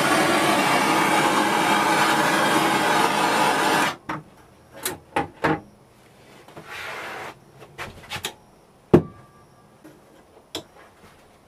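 Handheld gas blowtorch running with a steady roar, cut off suddenly about four seconds in. It is followed by scattered sharp clicks and knocks of metal tongs against the casting flask, and a brief hiss near the middle.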